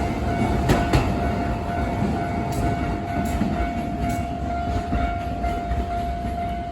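Electric commuter train running past over rail joints, with a couple of wheel clacks about a second in and a steady rumble after. A Japanese level crossing alarm rings on a steady tone throughout.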